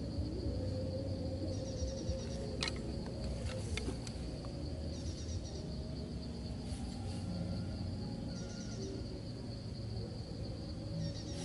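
Insects droning in one steady high tone, with a short trilled call repeating about every three seconds, over low rumbling noise. A few light clicks about three to four seconds in as the bamboo trigger sticks of the trap are handled.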